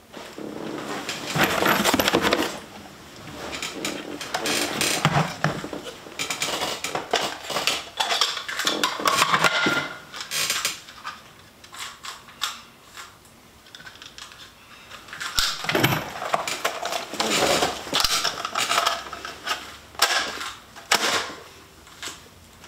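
Metal clinking and rattling, with scattered clicks and knocks as objects are handled, in irregular bursts with quieter gaps between.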